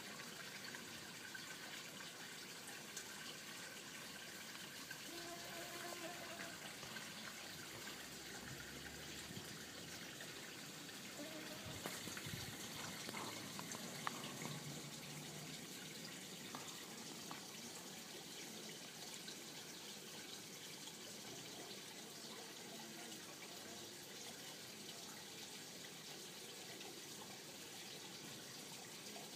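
Faint, steady trickle of running pond water.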